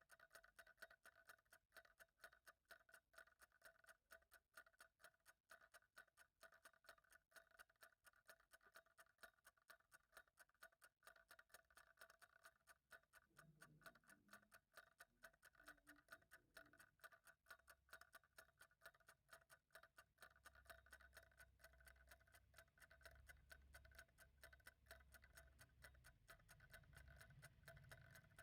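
Faint, steady ticking of a clock, with even, regular ticks.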